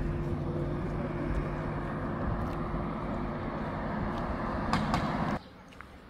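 A car driving along: steady engine hum and road noise, which cuts off abruptly about five seconds in.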